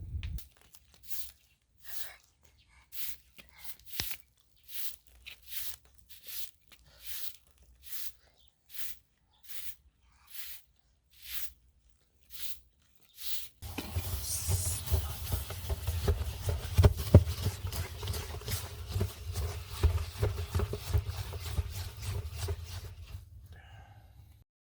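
A run of evenly spaced scraping strokes, a little more than one a second. From about fourteen seconds a louder continuous rough noise with a low rumble takes over and runs until just before the end.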